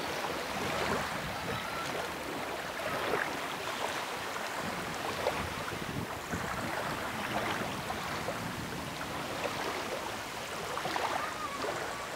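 Small waves lapping and breaking on a sandy river shore, with wind, as a steady rushing wash with small irregular swells.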